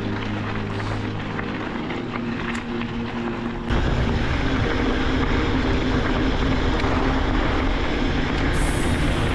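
Background music with sustained chords over the rushing noise of a mountain bike riding a gravel track, wind buffeting the microphone. About a third of the way in, the wind and rolling noise jumps suddenly louder.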